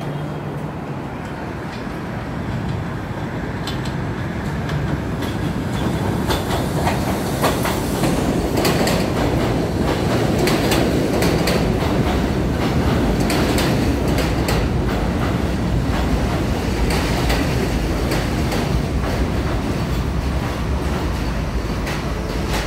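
New York City subway N train pulling in along the platform. Its running noise builds over the first several seconds and then holds steady, with the wheels clacking over rail joints.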